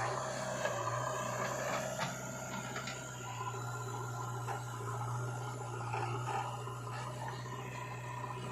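Heavy machinery's diesel engine running steadily with a low hum, with a few knocks and clanks of working metal, the sharpest about two seconds in.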